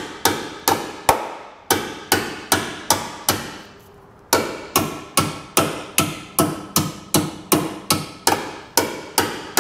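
Hammer blows on the thin sheet-steel pinch weld of a car's frame rail, a steady run of sharp strikes each with a short metallic ring, nearly three a second, with one brief pause about four seconds in. The weld flange is being knocked in about an eighth of an inch so a tow bar base plate will sit flush against it.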